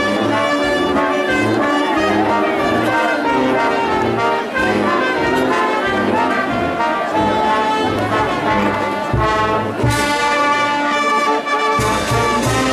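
Brass band music: trumpets and trombones playing a tune over a pulsing low bass line, growing fuller about ten seconds in.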